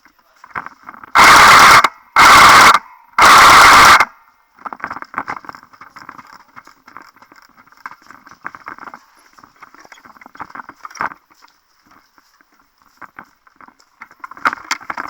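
Three short full-auto bursts from an airsoft gun, loud enough to overload the microphone, each lasting well under a second. Quieter scattered crackling follows.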